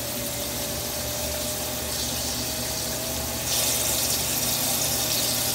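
CNC lathe running with flood coolant pouring onto the spinning steel stock and splashing into the catch basket below, with a faint steady whine. About three and a half seconds in a brighter, louder hiss joins as the tool starts cutting the front profile.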